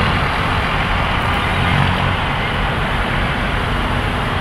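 Steady road traffic noise from a busy multi-lane road packed with cars and vans edging forward in a queue.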